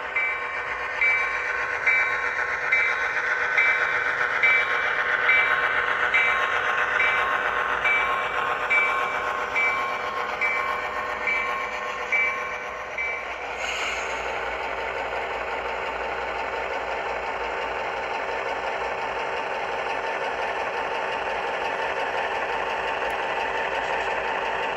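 Diesel locomotive sound from HO scale locomotive RLIX 437: its bell rings steadily, about one and a half strikes a second, while the diesel engine runs underneath. About halfway through the bell stops with a short hiss of air, and the engine carries on at a steady idle.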